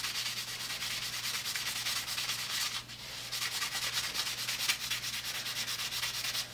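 Green Scotch-Brite pad scrubbed in quick back-and-forth strokes along an oil-finished wooden saw handle, a steady raspy hiss with a brief let-up about three seconds in. It is buffing off the raised grain whiskers from a cured boiled linseed oil coat without removing the finish.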